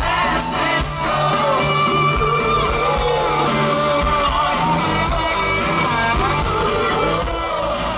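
Rock band playing live in a large concert hall, with a lead vocal singing long held lines over guitar and a steady beat.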